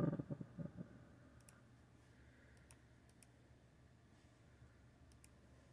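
Faint computer mouse clicks, single and paired, spaced a second or more apart, as selections are made from a web page's drop-down menus. A brief cluster of low thumps comes right at the start.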